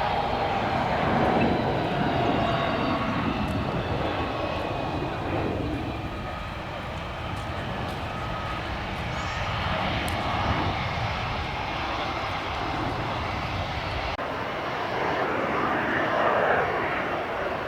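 Jet airliner engines passing, a steady noisy rush with faint whining tones that slowly fall in pitch; it swells again near the end.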